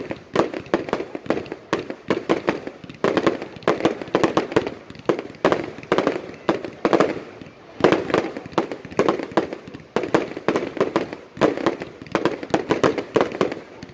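Fireworks display: many shells bursting in quick succession, with dense runs of sharp bangs separated by brief lulls.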